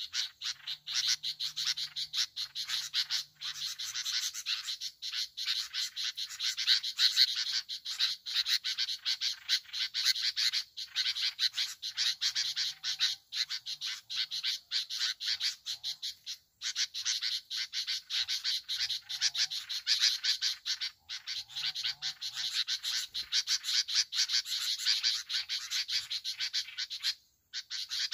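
Dense chorus of calling frogs: a continuous fast, rattling pulse of many overlapping callers.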